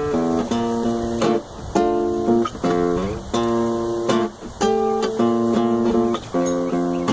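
Acoustic guitar played solo, a chord progression of struck chords, each ringing for about half a second to a second before the next.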